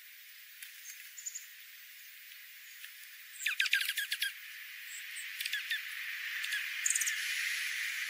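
Small songbirds calling: a quick run of sharp, high chip notes about three and a half seconds in, then a few shorter notes later, over a soft hiss that grows toward the end.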